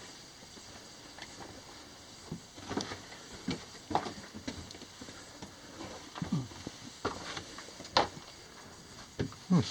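Slow, irregular footsteps and scuffs on a mine floor, with a few sharper knocks among them, the loudest near the end.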